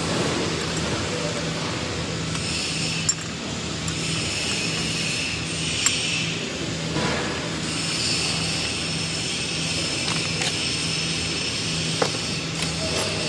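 Steady factory machinery noise with a low hum that throbs about once a second, and a few light metallic clinks as M12 steel hex nuts are set by hand onto a steel plate.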